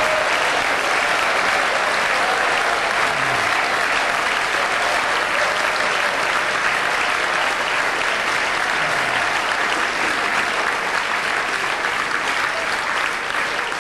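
Large audience applauding, a dense, even clapping that holds steady and eases slightly near the end.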